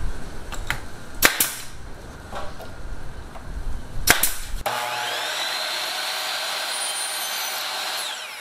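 Pneumatic brad nailer firing into plywood trim: a few light clicks and two sharp shots, about three seconds apart. Then a small electric air compressor motor spins up with a rising whine, runs steadily for about three and a half seconds and winds down near the end.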